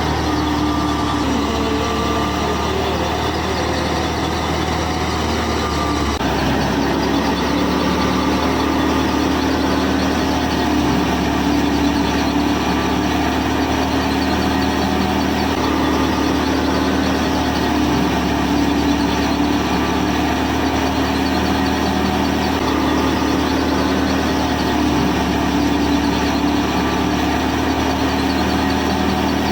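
Engine running steadily at idle, with an abrupt change in its tone about six seconds in.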